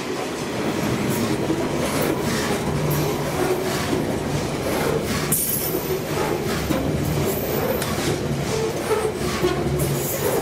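Loaded grain hopper wagons of an SSR grain train rolling past: a steady rumble of steel wheels on rail with repeated clacks over the rail joints. A thin high wheel squeal comes in about halfway.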